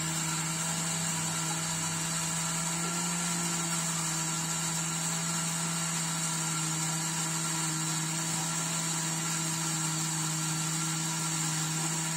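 An electric motor running at a constant speed, with a steady hum and a high whine.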